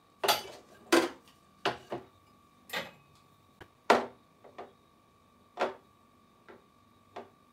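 Light clicks and knocks of tableware: utensils tapping and setting down small ceramic bowls as sliced okra is plated, about ten taps at uneven intervals, the loudest about a second in and near four seconds.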